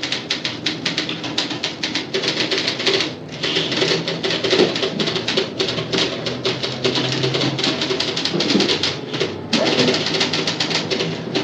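Busy office atmosphere: several typewriters clattering rapidly over a background of people talking. The typing eases off briefly twice, about three seconds in and near the end.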